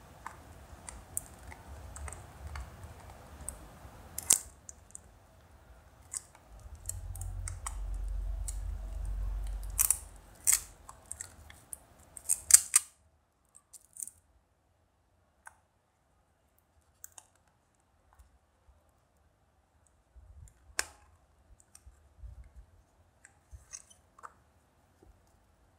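A hard plastic gashapon capsule being handled and pried open by hand: a series of sharp plastic clicks and taps, densest and loudest in the first half, with a low rumble of handling noise for a few seconds around a third of the way in. After about halfway only a few faint clicks remain.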